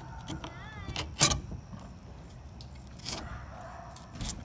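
A filleting knife working along a fish's backbone on a cutting board, with a few sharp clicks and knocks of the blade, the loudest just over a second in. A low steady hum runs underneath.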